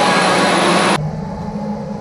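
Loud, dense noise that cuts off suddenly about a second in, giving way to an electric go-kart running on an indoor track: a low motor hum shifting slightly in pitch over tyre rumble.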